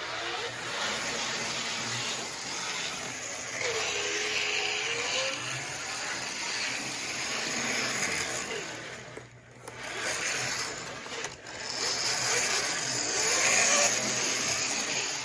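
Tyco HO scale trolley's small electric motor and gear drive whining as it runs along the track, the pitch wandering up and down. The sound dips briefly about nine and a half seconds in.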